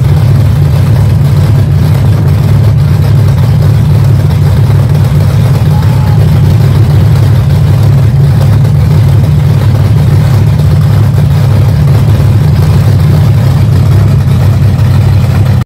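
Monster truck's big engine running loud and steady, a deep low rumble with no revving up or down.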